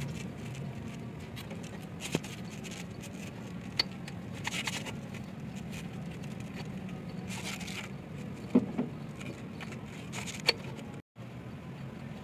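Hands handling a multi-groove pulley and a cogged V-belt on a bus engine: scattered metallic clicks, taps and scrapes over a steady low hum.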